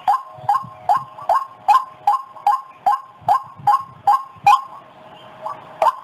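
White-breasted waterhen lure call: the bird's repeated call notes at about two and a half a second, each starting with a sharp click, with a short break about five seconds in.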